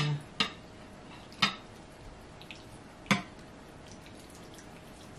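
Thick egusi soup tipped out of a glass bowl onto a plate, with three sharp taps of the glass bowl against the plate: near the start, about a second and a half in, and about three seconds in. Between them, only faint soft sounds of the soup sliding out.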